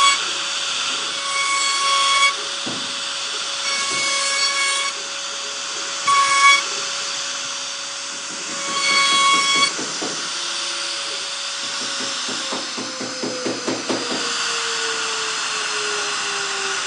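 CNC router running, with a steady spindle whine over a cutting hiss and short higher whines about every two seconds. A run of rapid ticks follows, and near the end the spindle tone slowly drops in pitch.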